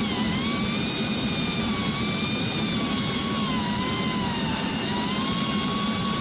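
Ryobi 40V cordless leaf blower's electric ducted fan running at full speed, a steady high whine over a low hum with its pitch wavering slightly, winding down at the very end.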